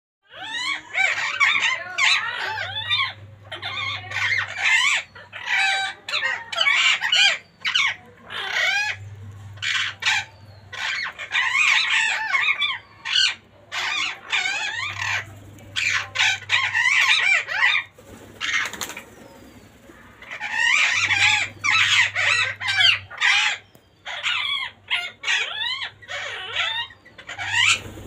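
Rose-ringed parakeet chattering in rapid bursts of squawks and screechy calls, with a short lull about two-thirds of the way in.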